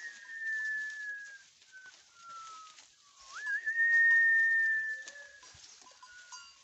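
Long, clear whistled notes, each held a second or more and slowly falling in pitch, with one quick upward swoop into a held note about halfway through, then a few short, lower notes.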